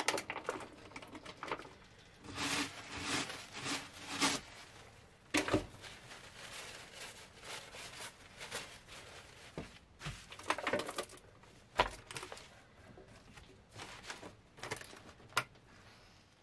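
Irregular rustling and crinkling of a white paper wrapping and a clear plastic food container being unpacked onto a wooden worktop, with scattered knocks and clicks.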